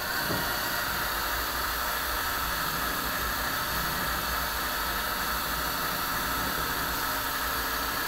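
A steady, even hiss with a faint low hum beneath it, unchanging throughout.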